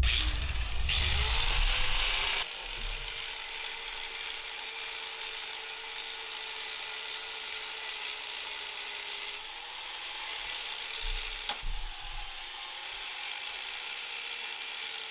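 Angle grinder spinning up and grinding through rusted steel trailer hardware, a continuous harsh hiss over the motor's whine, with the motor pitch sagging briefly a few times under load.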